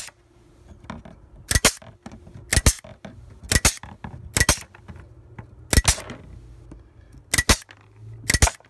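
Pneumatic wire cutters with Channellock plier jaws snipping through 11-gauge steel wire mesh, one wire after another: about seven sharp snaps, each a quick double click, roughly one a second.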